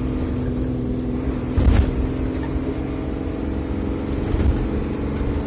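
Isuzu FVR truck's six-cylinder diesel engine running steadily under way in fourth gear, heard from inside the cab. Two low thumps stand out, about two seconds in and again past the four-second mark.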